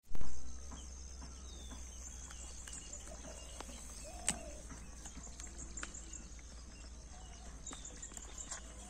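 Outdoor rural ambience: a steady high-pitched hiss and low hum with faint scattered clicks, a short thump at the very start and a brief call about four seconds in.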